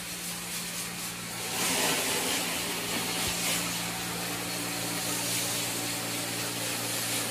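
Water spraying onto a truck as it is rinsed down: a steady hiss that gets louder about a second and a half in, over a steady low motor hum.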